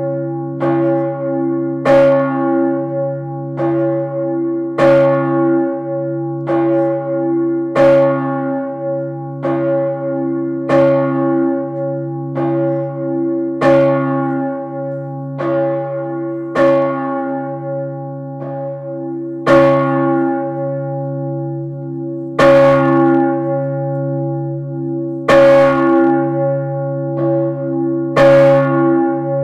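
Large swinging church bell, Urban (about 3200 kg, cast by Peter Gräf in 1588, tuned about C♯), ringing full. Its clapper strikes evenly about every one and a half seconds, and a deep hum sustains between the strikes. A few strikes in the second half are louder.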